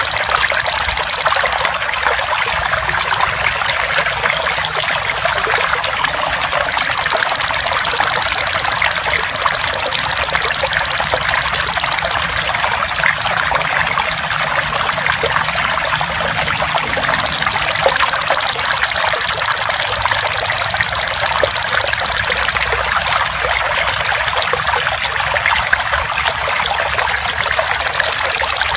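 Trickling, splashing water runs steadily under the loud, high-pitched buzzing trill of a belalang emas insect. The trill sounds for about five seconds at a time, then stops for about five seconds, in an even repeating cycle, as used in a masteran track for songbirds.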